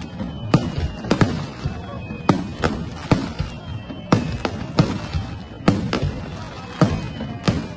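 Aerial fireworks shells bursting in quick succession at a hanabi display: sharp bangs about two a second, with crackling between them.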